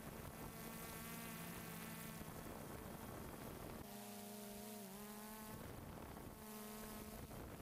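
Quadcopter drone's motors and propellers buzzing steadily, a faint hum whose pitch shifts a little about four to five seconds in.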